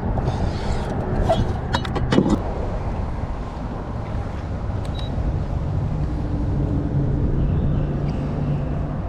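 Strong wind buffeting the microphone in a steady low rumble, with a few sharp clicks and knocks about two seconds in.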